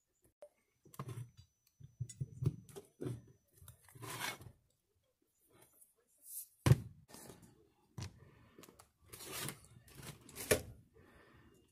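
Gear change lever and its cast-iron housing being handled and fitted together: a run of small clicks, scrapes and knocks of metal parts, with a sharper knock about seven seconds in and another near the end.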